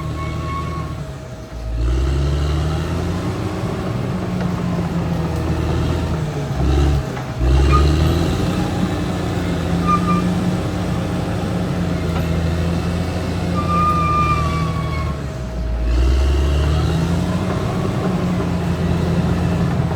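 Caterpillar D6R XL bulldozer's diesel engine running under changing load, its pitch rising and falling several times as the machine works. A few brief high-pitched squeals sound over it.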